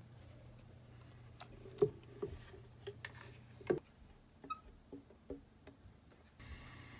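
Thick blended kabocha squash purée plopping from a blender jar into an enamelled pot while a silicone spatula scrapes and taps the jar: a scatter of soft plops and light knocks, the loudest about two seconds in and again near four seconds.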